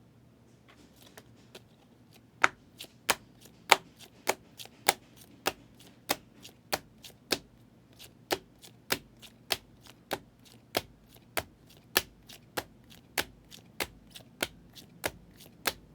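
A series of sharp, evenly spaced clicks, about one and a half a second, faint at first and clearer from about two seconds in.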